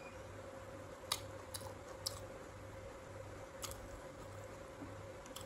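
A person chewing crisp raw sour fruit, with a few sharp crunches, the loudest about a second in, over a steady faint hum.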